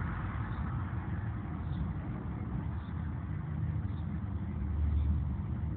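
Steady low rumble with a thinner hiss above it, swelling slightly near the end, and faint ticks about once a second.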